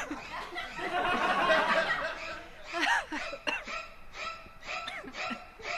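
People laughing and chuckling, with a run of short, evenly spaced laughs in the second half.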